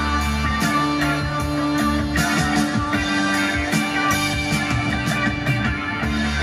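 Guitar-led music from a CD, played loud through a NAD 304 integrated stereo amplifier into a pair of small speakers.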